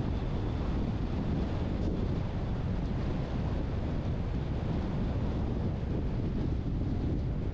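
Steady low rumble of wind on the microphone, mixed with the road noise of a car driving slowly along a street.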